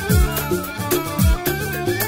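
Amazigh popular song playing instrumentally, without singing: deep drum hits on a steady beat under a wavering, ornamented melody line.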